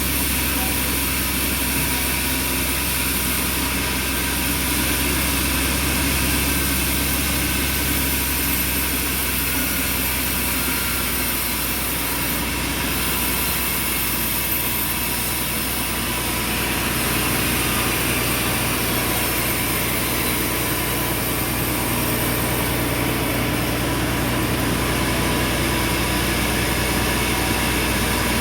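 Bandsaw sawmill running with a steady machine hum and a high whine, its tone shifting slightly about halfway through.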